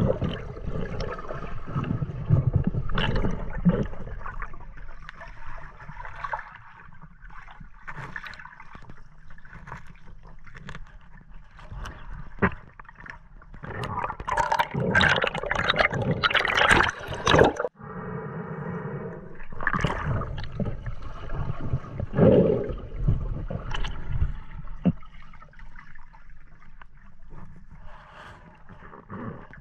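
River water gurgling and sloshing around a snorkeler's camera, in uneven swells with scattered sharp clicks and knocks.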